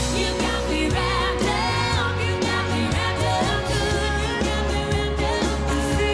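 A country band playing with a woman singing lead over acoustic guitar, electric bass and drums.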